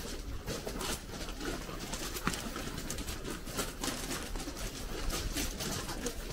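Footsteps crunching on a gravel path in irregular steps, with birds calling.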